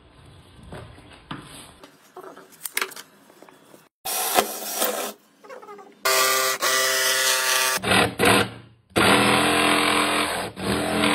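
Cordless drill boring into a wooden tabletop in a few short runs, its motor whining steadily. Near the end a DeWalt XR cordless jigsaw runs, cutting through the wood.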